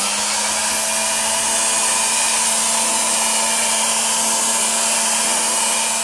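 Electric hot air gun running steadily: a loud, even rush of blown air over a steady motor hum, heating the bicycle frame tubes to dry them off.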